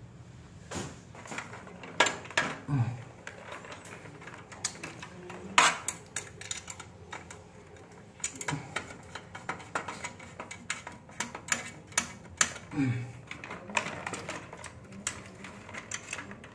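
Irregular light clicks, taps and a few sharper knocks of small hard parts being handled while a consumer unit (breaker box) is assembled and wired.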